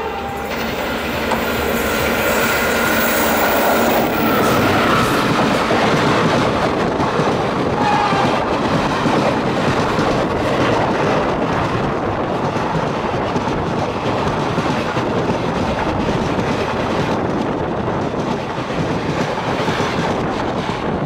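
Deccan Queen's passenger coaches passing close alongside on the adjacent track: a loud, steady rumble of wheels on rail with clickety-clack over the rail joints. A faint thin whine sounds in the first few seconds.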